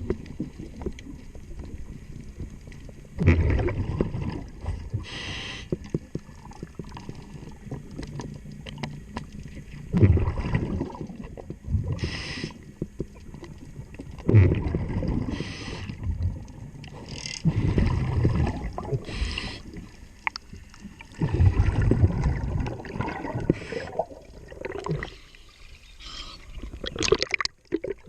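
Scuba diver breathing underwater through a regulator: short hissing inhalations alternate with rumbling bursts of exhaled bubbles, in a slow rhythm of several breaths. A few small clicks sound near the end.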